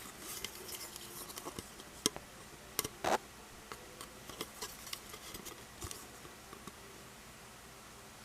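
Small plastic clicks and light scraping from a Plarail toy level crossing being handled, with a few sharper clicks two to three seconds in.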